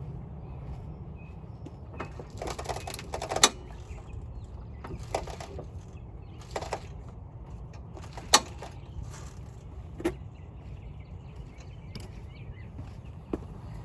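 Hand tools clanking against the metal of a car's wheel hub as its mounting bolts are worked loose. There are about six sharp clicks and knocks, a quick cluster a few seconds in and single ones after that, with the loudest about three and eight seconds in, over a steady low rumble.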